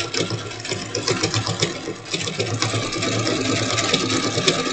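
Electric sewing machine running steadily, stitching a decorative stitch: a fast clatter of needle strokes over a low motor hum, with a steady higher whine joining about halfway through.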